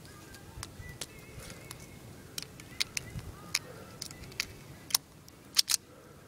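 Jennings J-22 .22 semi-automatic pistol being handled, a series of about a dozen sharp metallic clicks and clacks, irregularly spaced. The loudest pair comes about five and a half seconds in.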